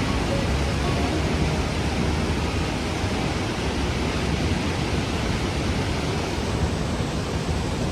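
Steady rushing roar of a large waterfall, an even wash of falling water.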